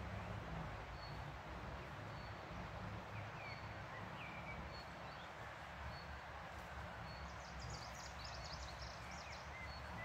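Wild birds singing over the steady rush of a river: a short high note repeated about once a second, a few brief chirps in the middle, and a fast high trill near the end.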